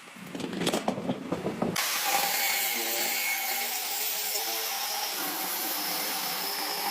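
Irregular clatter, then about two seconds in a power tool starts up with a steady, loud hiss that carries on.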